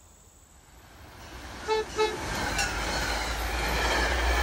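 MBTA commuter train's horn gives two short toots, then the train runs past loudly, its noise building into a steady low rumble.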